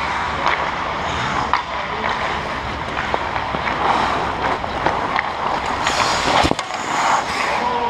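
Ice hockey skates scraping and carving on rink ice, with scattered sharp clacks of sticks and puck. A louder sharp knock comes near the end.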